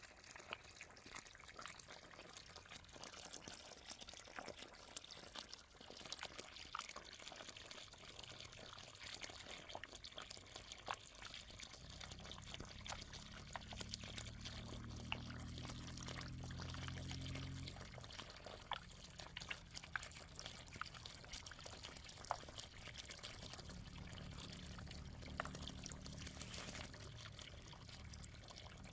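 Faint water pouring and trickling as olive trees are watered. A low droning hum joins in for several seconds midway through and again near the end.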